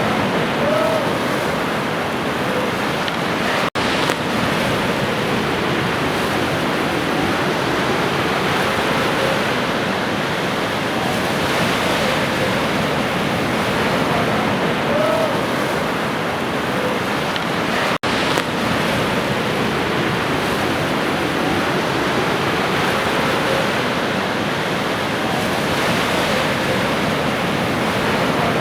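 Ocean surf washing steadily on a shore. A few faint, short chirps sound over it, and the sound cuts out for an instant twice.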